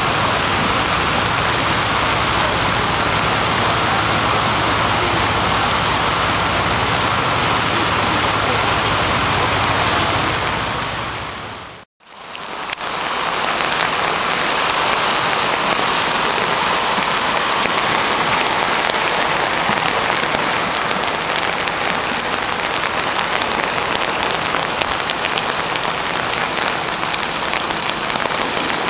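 Steady rush of San Anselmo Creek running high and close to flooding, with no single splashes standing out. The sound fades out to silence for a moment about twelve seconds in, then comes back.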